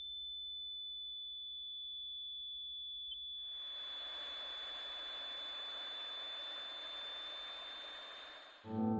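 A single steady high-pitched electronic tone, like a film's ear-ringing effect, holds without a break. About three and a half seconds in, an even hiss joins it, and both cut off shortly before the end as the music comes back.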